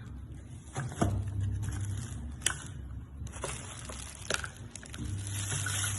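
Box packaging being handled and opened by hand: crinkling, scraping and rustling with scattered sharp clicks and taps.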